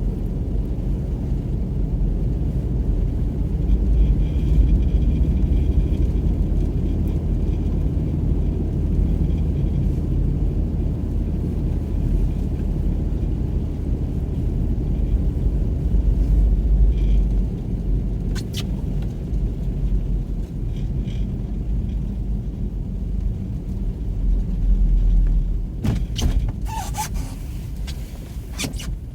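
Steady low rumble of a car's engine and tyres on a snow-covered road, heard from inside the cabin. A few brief clicks and knocks come about two-thirds of the way in and again near the end.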